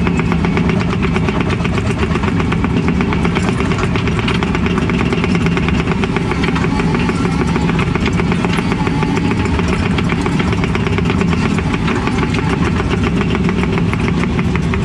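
Excavator's diesel engine running steadily at working speed, heard from inside the cab as the machine moves across the site.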